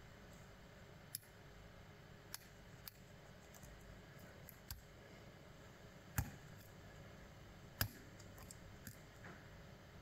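Scattered small metallic clicks of a lock pick working the pins of a brass euro-profile cylinder under tension, over faint room hiss; the two sharpest clicks come about six and eight seconds in.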